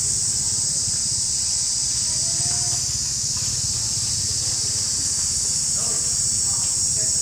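Steady high-pitched drone of insects in the forest canopy, with a low steady rumble underneath. A few faint short calls sound about two and a half seconds in and near the end.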